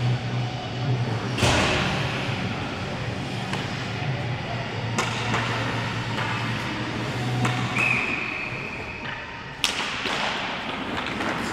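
Ice hockey play: skates scraping on the ice, with sharp knocks of stick and puck about 1.5, 5 and 9.5 seconds in, over a steady low hum that stops near 8 seconds. A brief steady high tone sounds at about 8 seconds.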